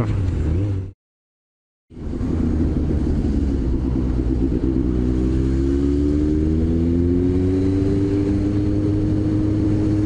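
Motorcycle engine running under wind noise, cut dead for about a second near the start. When it returns, the engine's pitch climbs slowly over several seconds as the bike accelerates through traffic.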